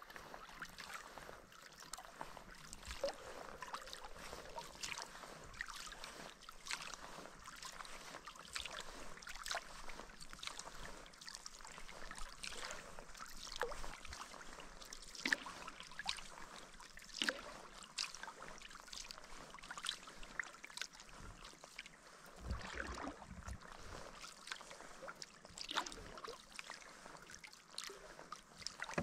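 Kayak paddle dipping into calm lake water, with many small irregular splashes and water dripping and trickling off the blade between strokes.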